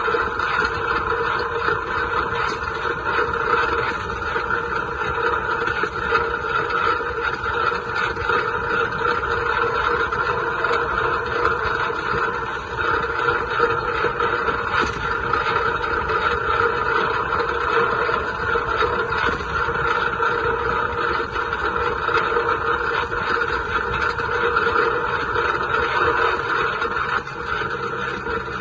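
John Deere 2130 tractor's three-cylinder diesel engine running steadily while the tractor is driven.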